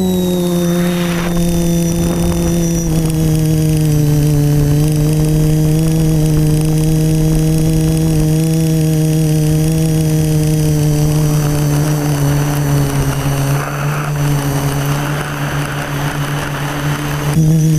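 Quadcopter's electric motors and propellers buzzing steadily, heard from the onboard camera; the pitch sags slightly through the middle and steps up near the end as the throttle changes.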